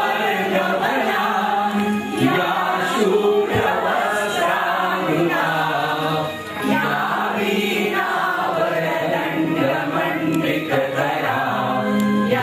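A group of men and women singing a Hindu devotional prayer together in unison, led by two women at a microphone.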